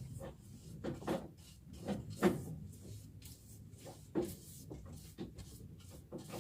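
Scattered light knocks and scrapes at irregular intervals, the sharpest a little after two seconds in.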